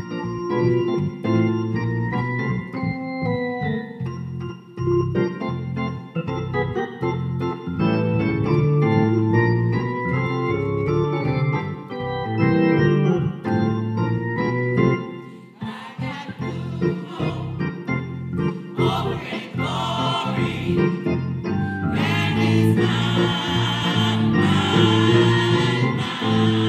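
Organ playing sustained chords as an introduction, then a church choir comes in singing with it about sixteen seconds in, fuller from about twenty-two seconds.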